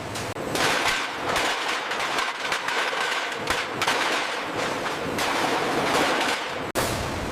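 Factory metalworking noise: a dense run of irregular crackling and clattering bursts, broken off by a sudden cut near the end to a steadier machine noise.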